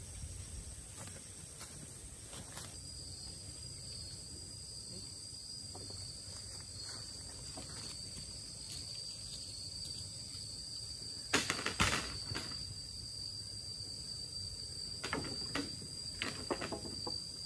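Insects singing: two steady high-pitched drones, the lower one coming in about three seconds in. About two-thirds of the way through a quick cluster of sharp knocks is the loudest sound, with a few softer clicks near the end.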